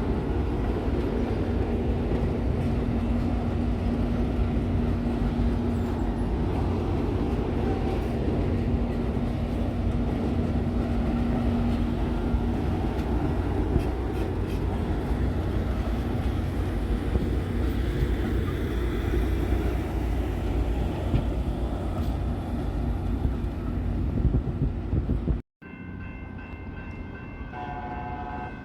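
Train running close by: a loud, steady heavy rumble with a low hum. It cuts off abruptly near the end, followed by a quieter sound holding several steady high tones.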